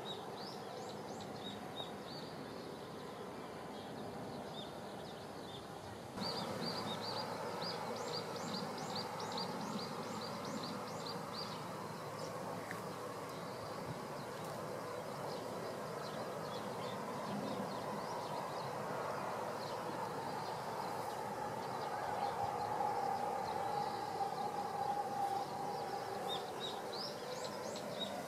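Steady distant rush of a Shinkansen train running along an elevated viaduct, swelling a little near the end, with a bird chirping in quick runs of high notes over it. The background jumps abruptly louder about six seconds in.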